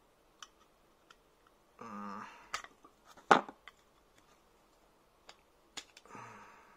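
Needle-nose pliers and aluminium square tubing clicking and tapping as small metal parts are worked into the holes of a telescoping shaft: scattered light clicks, with one sharp click about a third of the way in as the loudest.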